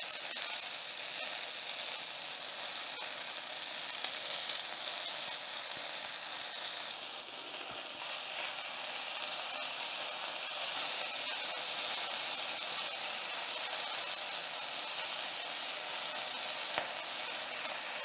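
Chicken and spring-onion skewers sizzling steadily on a hot nonstick grill plate while barbecue sauce is brushed onto them.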